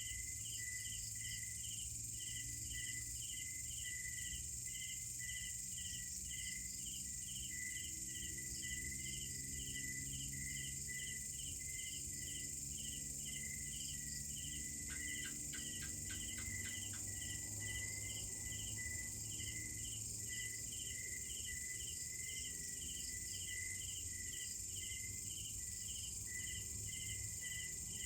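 Night insect chorus: a steady high-pitched insect drone, with a cricket chirping in an even rhythm about twice a second. About halfway through there is a brief rapid run of clicks.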